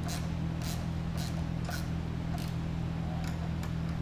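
A wrench tightening the mounting bolts of a Power Pole rear anchor light: a short, sharp rasping click about every half second as the bolts are run down tight, over a steady low hum.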